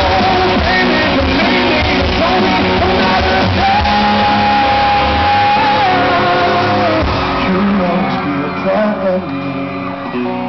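Live rock band with a male lead singer playing a ballad, heard from the audience, with one long held note in the middle. The deep bass drops out about halfway through and the music thins and quietens near the end.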